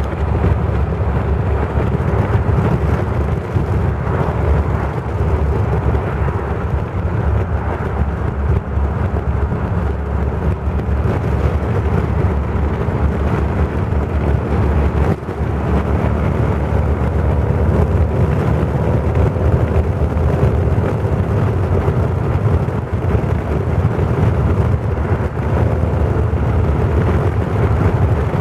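Bugatti Type 35's engine running steadily at cruising speed, heard from on board the open car along with wind and road noise.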